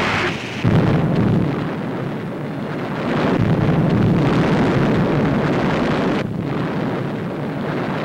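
A depth charge exploding: a sudden blast about a second in, followed by several seconds of heavy, continuous noise that eases off about six seconds in.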